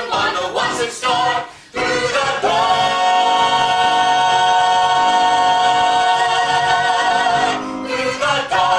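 Singing from a musical-theatre number reaching its finale: a few sung phrases, then a long held final note of about five seconds, then a short closing phrase that cuts off sharply at the end.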